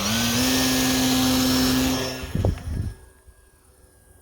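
Electric motor and propeller of a 3D-printed RC plane running at high throttle with a steady whine that steps up in pitch just after the start, then dies away between two and three seconds in, with a few low thumps as it fades.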